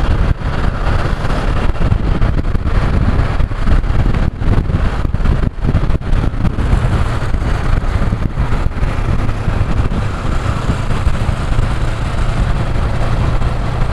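Wind rushing and buffeting on the camera microphone over the running of a Honda CB500X's parallel-twin engine, riding along at road speed.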